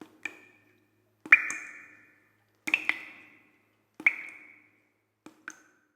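Marching drum struck in flams: five paired hits, each a quick double strike with a short ring, spaced about 1.3 s apart.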